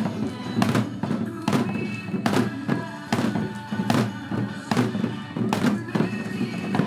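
Janggu (Korean hourglass drums) played by a group in time with backing music: sharp strikes on a steady beat, a heavy stroke about every 0.8 seconds with lighter strokes between.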